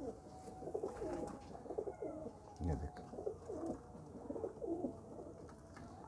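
Domestic pigeons cooing in a loft, their low warbling coos overlapping one another, with a brief low thump near the middle.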